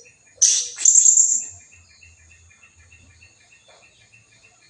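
Blue-crowned hanging parrot (serindit) lure call: a burst of shrill, high-pitched chirps about half a second in, lasting around a second. Behind it a thin steady high tone and a faint run of short pips, about four or five a second, carry on.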